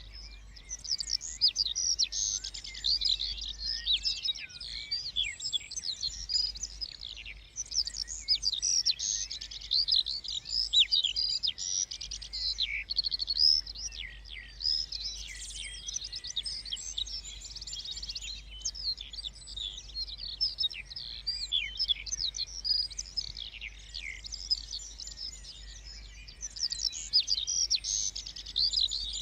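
Several small songbirds singing at once in a dense, continuous chorus of high-pitched chirps and quick trills, with a faint low rumble underneath.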